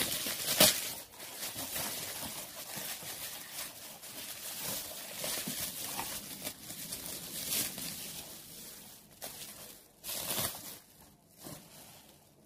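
Bubble wrap and a cardboard box rustling and crinkling as they are handled and unpacked. There are sharper, louder rustles just after the start and again about ten seconds in, and the sound grows fainter near the end.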